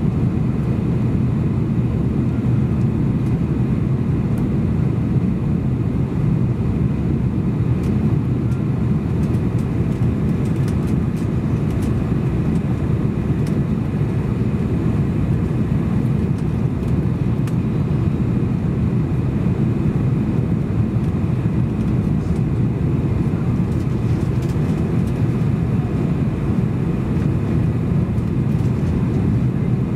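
Steady in-flight cabin noise of a Boeing 747-400 heard from a window seat over the wing: the even, low rumble of its four jet engines and the rush of air past the fuselage, unchanging throughout.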